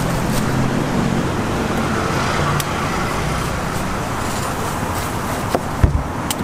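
Steady background din like road traffic, with a low hum under it and a few short knocks near the end.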